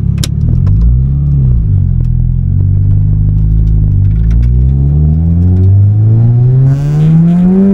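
Toyota Celica GT-Four race car's turbocharged four-cylinder engine, heard from inside the cabin, pulling away and accelerating hard through the gears. A brief rev about a second in, then the revs climb, drop at a gearchange about four seconds in, climb again in the next gear, and drop at another shift at the end.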